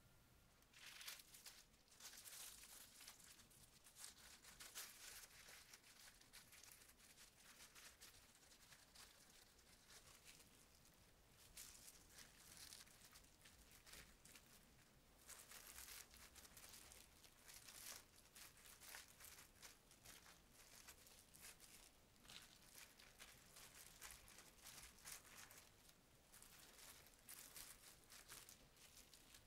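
Faint, irregular crinkling and rustling of disposable plastic gloves as hands spread cooked rice over a sheet of gim on a plastic-wrapped bamboo mat and lay fillings on it.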